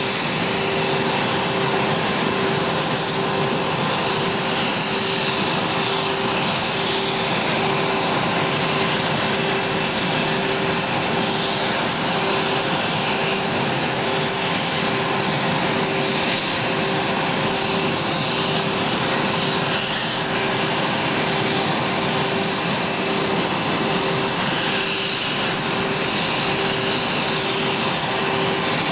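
Steady whine and rush of aircraft turbines running at idle, with a high continuous whine and a low hum that pulses on and off at an even rate.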